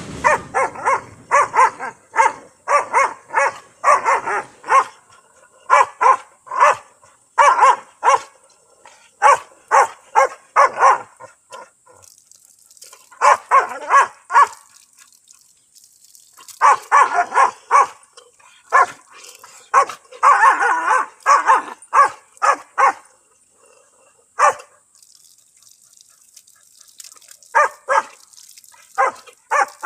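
Yellow Labrador barking in quick runs of short barks, the runs broken by pauses and a longer lull near the end, as it plays at water running from a tap.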